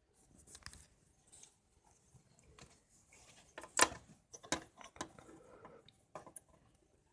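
Handling noise from working on electronic parts: scattered small clicks, taps and rustles, with a sharp click about four seconds in and another just after.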